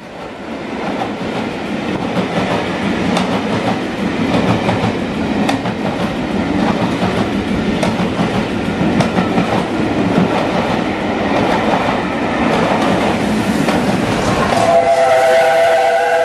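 Passenger coaches running through a station at speed: a steady rumble with wheels clicking over rail joints. About fifteen seconds in, the chime whistle of LNER A4 Pacific steam locomotive 60009 sounds as a steady chord of several notes, held to the end.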